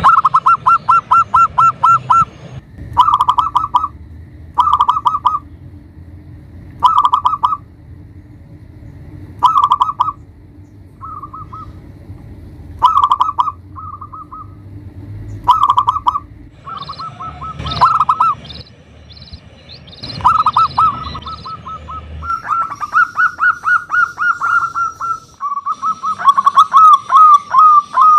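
Local zebra dove (perkutut) cooing: a run of short, rapidly pulsed coos repeated every second or two, merging into longer trilling runs near the end. Fainter high chirps come in about two-thirds of the way through.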